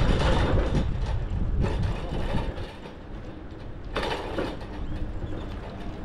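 A scooter rolling over rough asphalt, its frame and basket rattling, with a rumble that is louder for the first couple of seconds and then eases off.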